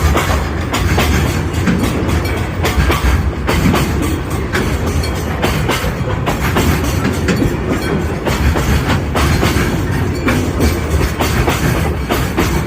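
Freight train passing, its wagon wheels clacking over the rail joints with a continuous low rumble.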